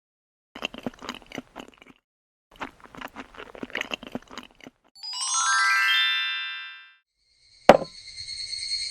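A sequence of sound effects: two runs of quick, light tapping, then a tone that rises steadily in pitch for about two seconds, a sharp click, and a steady high ringing tone.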